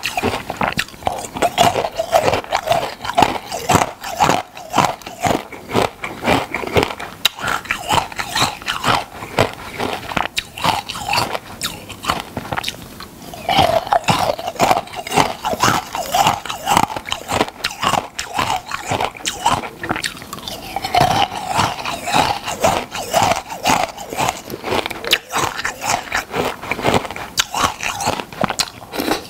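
Close-miked crunching of crunchy food being bitten and chewed: a dense, irregular run of crisp cracks, with a short pause about halfway through.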